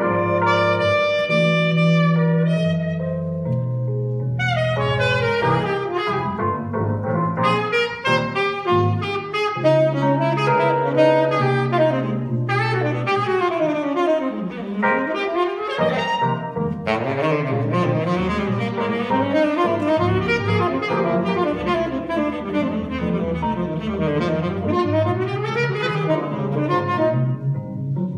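Live jazz: a tenor saxophone plays an improvised solo of quick runs and swooping phrases over keyboard and drum kit accompaniment, with sustained low bass notes underneath.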